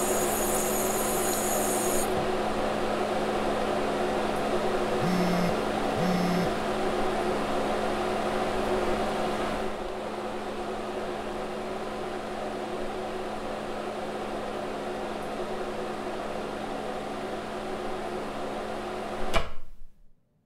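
Microwave oven running with a steady hum, with two short beeps about five and six seconds in. A brief hiss of tap water runs at the start, and a sharp click near the end is followed by a sudden cut to silence.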